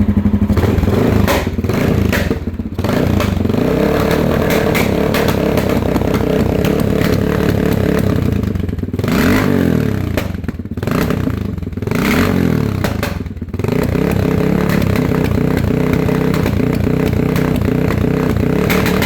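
1998 Honda XR650L's air-cooled single-cylinder four-stroke engine running, coughing and spitting: it is running poorly. The revs rise and fall several times in the middle, with brief stumbles where the sound drops, then it settles back to a steady run.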